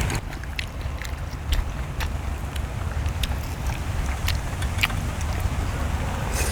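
People chewing and biting grilled beef tenderloin and mushrooms, with scattered small clicks, over a steady low rumble of wind on the microphone.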